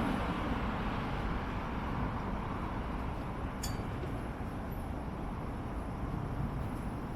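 Steady city street ambience: a hum of road traffic that eases off slightly, with one faint high tick about three and a half seconds in.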